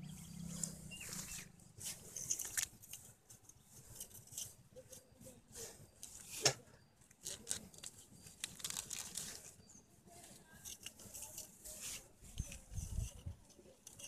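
Irregular rustling and crinkling of grass and a dry leaf sheath with scattered sharp clicks, as a swamp eel is pinned with a wire spear and handled. One sharper click comes about six and a half seconds in, and a few low thuds near the end.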